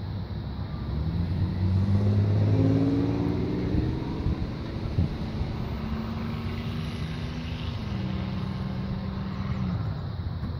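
An engine running: it rises in pitch over a few seconds as if accelerating, then holds a steady pitch and cuts out shortly before the end.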